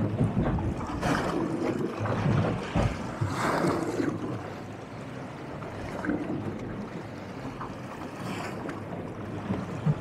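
Wind buffeting the microphone over choppy sea, with waves slapping and sloshing against a small boat's hull in uneven surges.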